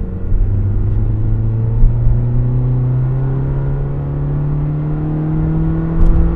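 Honda Civic Sport's 2.0-litre four-cylinder through a MagnaFlow NEO Series straight-through cat-back exhaust, heard from inside the cabin as the car accelerates. The engine note climbs steadily in pitch as the revs rise.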